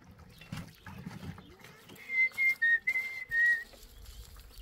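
A person whistling a short run of about five clear notes, stepping between two close pitches, a couple of seconds in.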